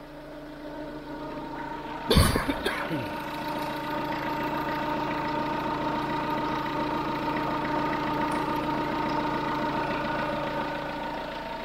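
Pickup engine idling evenly after a cylinder-head repair, with a steady whine from the accessory drive belt. A loud thump comes about two seconds in.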